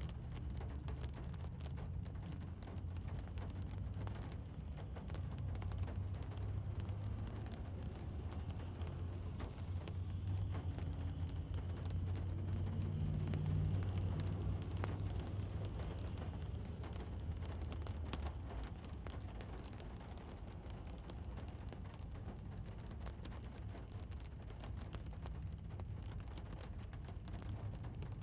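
Light rain pattering on a parked car, heard from inside the cabin as many small drop ticks on the roof and glass over a steady low rumble of distant traffic. The traffic rumble swells a little about halfway through.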